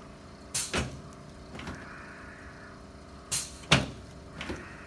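Chiropractic adjustment of the shoulders, clavicles and front ribs of a patient lying on an adjusting table: two pairs of short, sharp cracks and thumps, one pair within the first second and another past three seconds in, the last the loudest.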